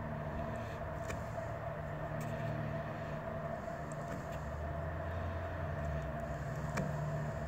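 Steady low hum of an idling engine running throughout, with a couple of faint brief clicks, one about a second in and one near the end.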